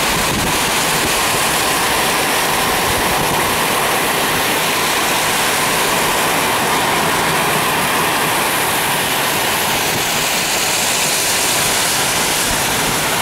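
Steady, loud rushing noise of a car driving on a rain-soaked highway: tyres hissing through water on the pavement along with the rain, heard from inside the car.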